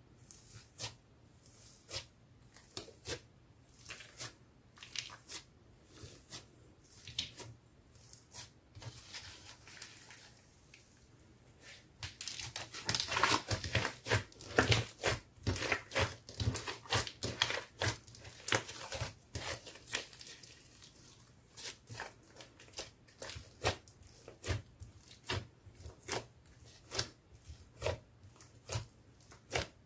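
Thick clear slime mixed with glitter, makeup, clay and foam beads, worked by hand. It gives off sticky pops and clicks, about one or two a second. In the middle there is a louder, denser stretch of crackling squishes while it is squeezed and folded.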